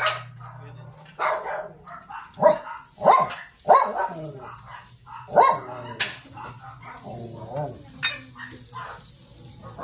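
Several dogs barking in short, sharp barks, about seven or eight in a row, loudest in the first six seconds and lighter toward the end, while they wait to be fed raw ground beef.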